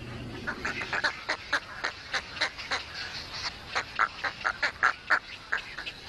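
Little egrets calling: a rapid run of short calls, several a second, starting about half a second in.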